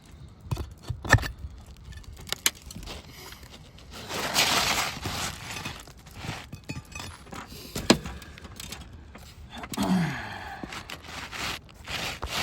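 Asphalt roof shingles being handled and pried up: scraping and crackling with scattered sharp clicks and knocks, the loudest click about eight seconds in.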